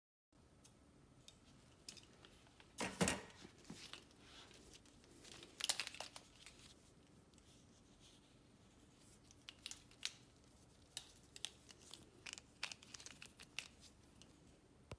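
Handling noise from hub-motor cables and their plastic wrapping: plastic crinkling and rustling, loudest in two bursts about three and six seconds in, then scattered light clicks as the wire bundle and connectors are handled.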